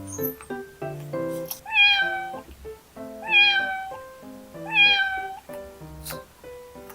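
A cat meowing three times, about a second and a half apart, each meow rising then falling in pitch, over light background music with plucked notes.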